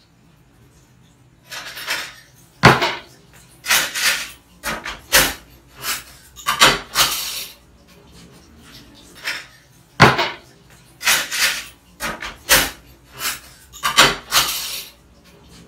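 Dishes and utensils clattering and knocking at a kitchen sink, a dozen or so irregular knocks and scrapes with a couple of sharp bangs, pausing for about two seconds midway.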